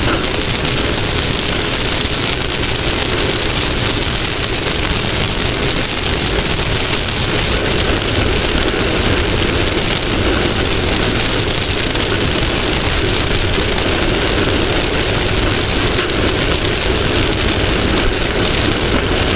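Off-road race vehicle driving at speed: a steady, unbroken rush of engine, wind and terrain noise picked up by a camera mounted on the front of the vehicle.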